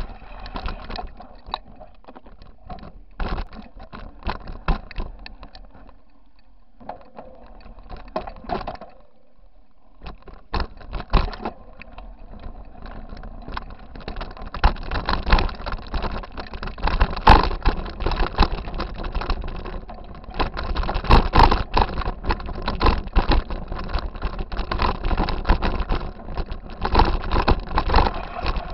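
Mountain bike jolting over a rocky dirt trail, heard through a handlebar-mounted camera: a constant clatter of knocks and rattles from the bike and camera mount as the tyres hit rocks. It is sparser with a quieter stretch in the first part, then becomes denser and louder from about halfway on.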